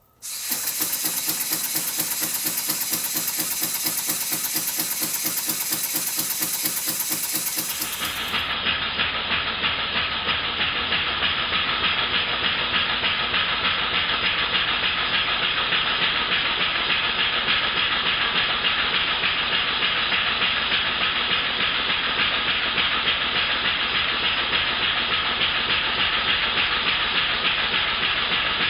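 Single-cylinder brass model steam engine running on compressed air: a fast, even chuff of exhaust puffs with steady hiss, starting suddenly as the air is turned on.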